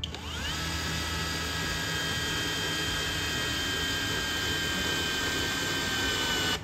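HOTO 12V cordless brushless drill driving a screw into wood on its lowest torque setting. The whine rises quickly as the motor spins up, then holds steady while slowly dropping in pitch. It cuts off suddenly at the end as the drill's electronic torque limit stops the motor.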